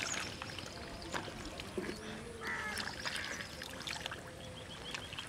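Hands scooping and grabbing in shallow muddy water, with small splashes, squelching mud and trickling water.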